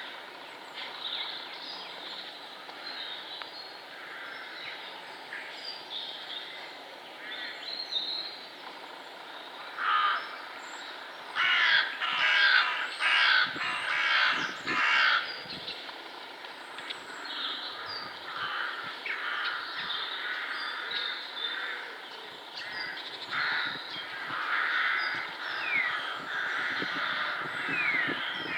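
Woodland birds calling: a run of loud, harsh caws about ten to fifteen seconds in, over steady small-bird chirps and song.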